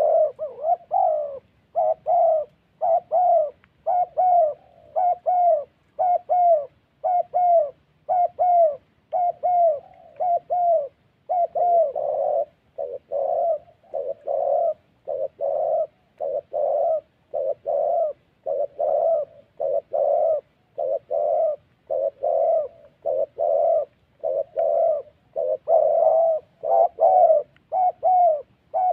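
Spotted doves cooing in short notes, repeated about twice a second without pause. This is territorial calling between a caged decoy dove and a wild dove that has come to fight it.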